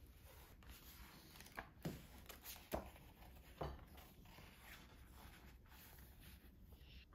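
Near silence in a quiet room, with a few soft taps and paper rustles from a cookbook being handled and its pages turned.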